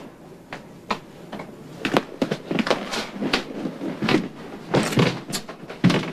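Door handling and a run of irregular knocks and clicks in a room.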